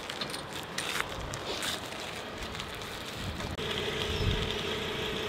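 Wind on the microphone with scattered short clicks and scuffs; about three and a half seconds in, the sound switches abruptly to a steady hum with a hiss over it.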